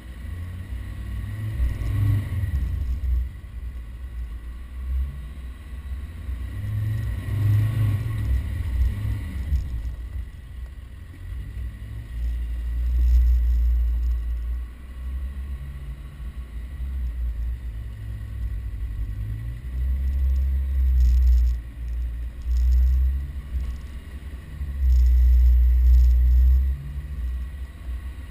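Land Rover Defender 110 driving over sand dunes, its engine a low rumble that swells and eases again and again, with louder surges about two seconds in, around eight seconds, and several times in the second half.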